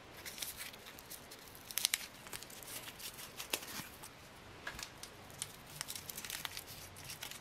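Wrapping of a small packet of Wrigley's P.K. chewing gum being torn and peeled open by hand: quiet, irregular paper crinkling and tearing, with sharper crackles about two seconds and three and a half seconds in.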